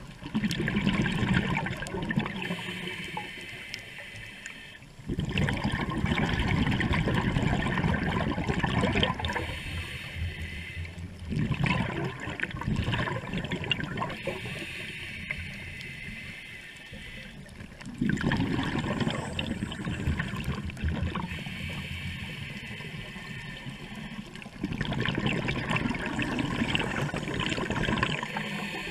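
Scuba diver breathing through a regulator underwater: five loud gurgling rushes of exhaled bubbles, each a few seconds long and about six seconds apart, with quieter stretches of inhaling between.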